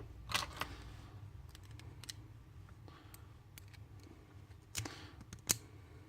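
Scattered small clicks and taps of a lock cylinder and picking tools being handled at a bench, with two louder clicks near the end.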